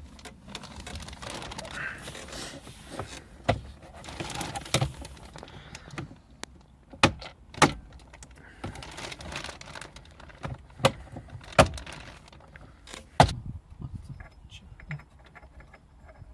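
Metal tools and parts clinking and rattling during work on a car's steering wheel mount, with about six sharp clicks or knocks spaced a second or more apart.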